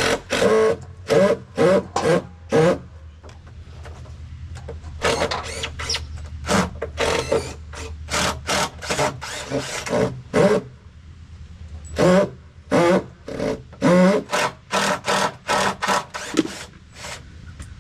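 Hammer blows driving nails into joist hangers and deck joists: irregular runs of sharp strikes, some ringing briefly, with short pauses between runs and a steady low hum underneath.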